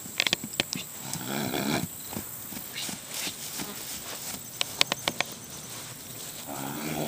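Rocky Mountain Horse close by, giving two short low nickers, about a second in and again near the end, with a few sharp clicks near the start and around five seconds in.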